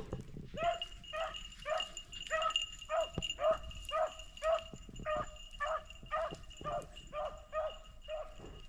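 Beagle giving tongue on a rabbit's trail: a steady string of short, falling yelps, about two a second, the sign that the dog is running the scent.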